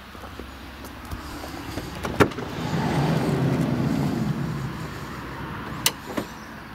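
Chrysler Voyager's sliding side door opening: a latch click about two seconds in, then the door rolling back along its track for a couple of seconds, and a click near the end as it stops in the open position.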